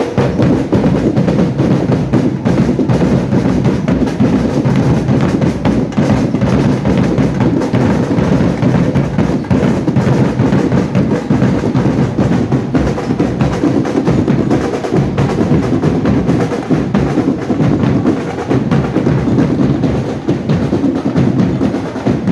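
Parade band's drum section playing without a break: bass drums and snare drums beating a dense, driving rhythm.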